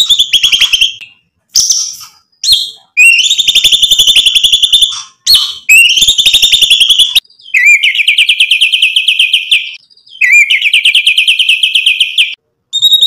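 White-rumped shama (murai batu) singing a string of fast rattling trills, each one to two seconds long, with a few short sharp notes between them. The last two trills are a little lower in pitch.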